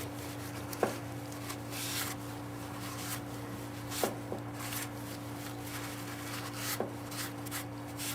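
Rag wiping lapping compound out of a valve seat on a Ford 302 cylinder head: short rubbing strokes with a few light taps, over a steady low hum.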